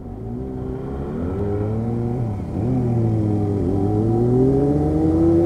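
Yamaha R15's single-cylinder engine accelerating hard from a junction, its pitch rising and dropping back at two upshifts, about two and three and a half seconds in, with wind and road noise over the helmet camera.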